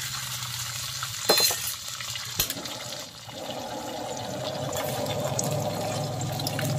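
Beaten egg sizzling in hot oil in a wok as it spreads and sets, with two sharp clinks in the first few seconds. From about three seconds in, a steady low hum grows louder beneath the sizzle.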